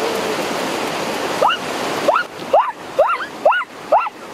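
Rushing stream water, a steady rush that drops away about two seconds in. From about halfway through, a run of short high calls, each rising and then falling in pitch, comes about twice a second.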